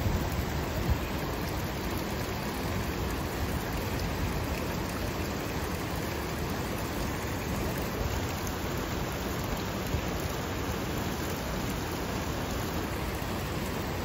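Steady rushing hiss of a hot spring venting steam and water among rocks. Brief wind buffeting on the microphone in the first second.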